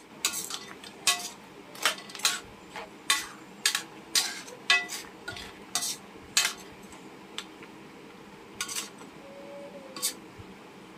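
Cooking utensil stirring in a large metal wok, knocking and scraping against its sides: irregular clanks about one or two a second, some with a short ring, thinning out after about six seconds to a couple of isolated knocks.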